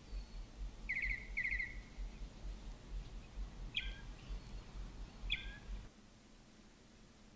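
Birds chirping in a rural ambience: a quick trill about a second in, then two short calls a second and a half apart, over a low rumble that cuts off near the end.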